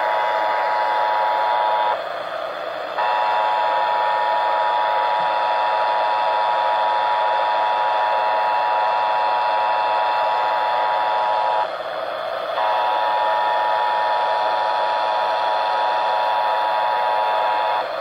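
EAS two-tone attention signal, a steady dual tone, played through a hand-crank emergency radio's speaker with FM static hiss underneath. It drops out briefly to hiss about two seconds in and again about twelve seconds in, and stops just before the end.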